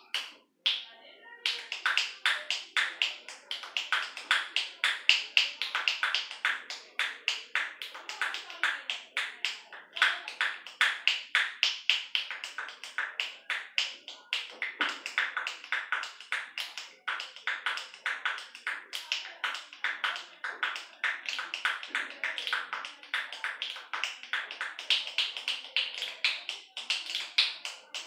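Rhythmic finger snapping with both hands played as music, a fast run of sharp snaps at about four a second, starting in earnest about a second and a half in after a couple of single snaps.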